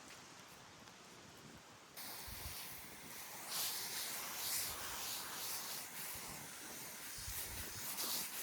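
Water spraying from a garden hose onto trees and shrubs: a hiss that gets louder suddenly about two seconds in and then comes in surges, with wind buffeting the microphone.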